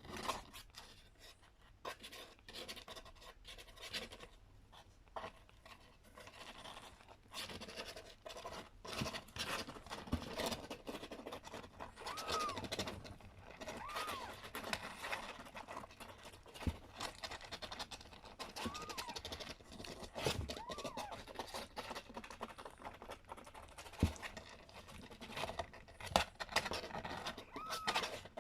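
A four-week-old kitten mewing quietly about five times, short rising-and-falling calls spread through the second half, over steady scratching and rustling.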